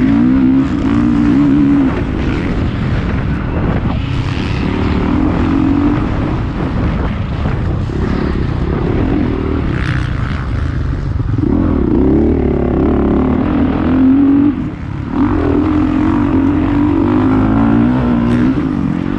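Motocross bike engine heard close up through the onboard camera's microphone, revving hard and backing off over and over as the throttle opens and closes, with a short throttle cut about three-quarters of the way through.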